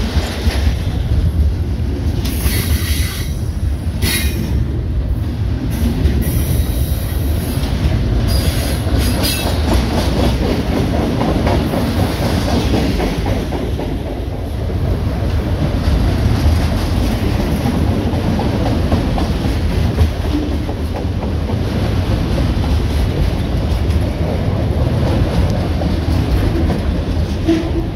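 Norfolk Southern freight train's double-stack container cars and autorack cars rolling past at close range: a steady low rumble of wheels on rail, with bursts of high-pitched wheel squeal in the first ten seconds or so.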